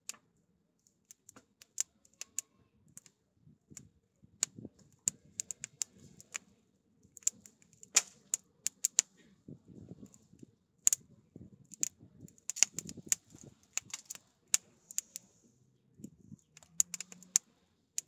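Wood fire crackling: irregular sharp snaps and pops from the burning split wood, sparse at first and coming thicker after a few seconds, over a faint low rumble.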